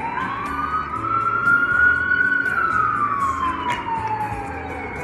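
A siren wailing: its pitch rises slowly for about two seconds, then falls more slowly, and it starts to rise again at the end.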